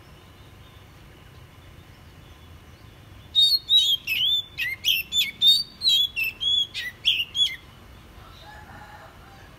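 Oriental magpie-robin singing a rapid phrase of about a dozen clear whistled notes, some sliding down in pitch. The phrase starts about three seconds in and lasts about four seconds.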